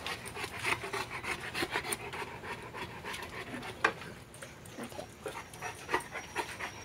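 Cane Corso panting hard from heat and stress, mixed with scuffs and knocks from movement.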